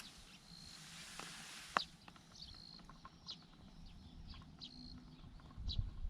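A bird calling repeatedly, alternating short, steady high notes with quick downward-sliding chirps. A single sharp click comes about two seconds in, and a low rumble rises near the end.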